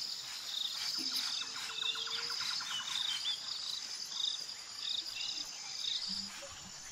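Forest ambience of insects chirring steadily, with short high chirps repeating throughout and a brief rapid trill about two seconds in.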